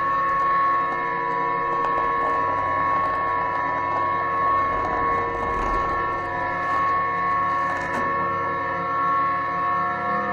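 Ambient background music: a steady drone of several held tones.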